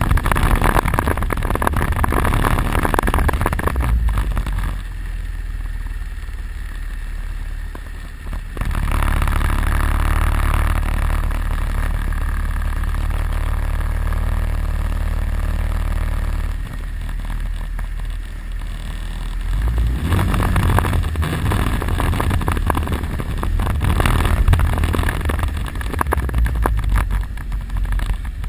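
ATV quad bike engine running under way, its sound swelling and easing as the rider speeds up and slows down, quieter for a few seconds twice.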